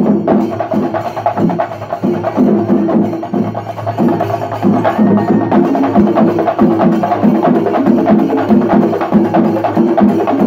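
Shinkari melam: a large group of chenda drums beaten with sticks in a fast, driving rhythm of dense strokes, with ilathalam hand cymbals clashing along.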